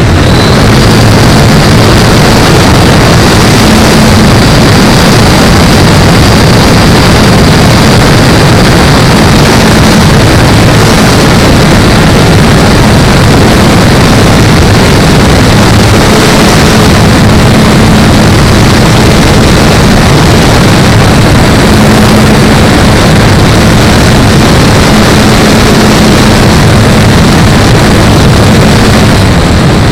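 Joker XL model tow plane's engine running at steady power under a loud, even rush of noise, with a low drone and a thin high whine held throughout.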